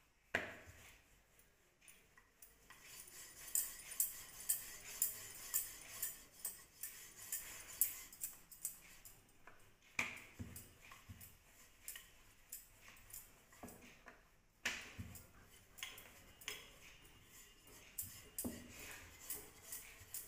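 A rolling pin rolling out a chapati on a wooden board, faint, with light clicks and metal clinks about twice a second in time with the strokes, from the roller's metal bangles.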